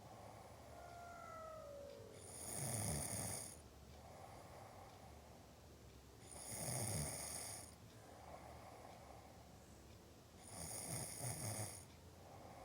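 Snoring: three loud snores about four seconds apart, each lasting about a second and a half with a low rattle, and quieter breathing between them. A faint falling whistle sounds in the first two seconds.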